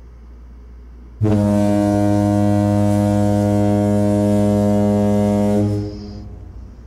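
Foghorn sound effect: one long, low, steady blast of about four and a half seconds, starting about a second in. It stands in for a cuss word.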